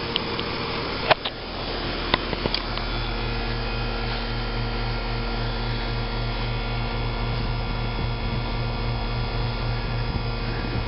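2000 York heat pump running in cool mode, a steady machine hum with several fixed tones and a low pulsing drone, and a few sharp clicks in the first three seconds. The unit is failing: it runs but does not cool, its suction lines hot instead of cold and sweating.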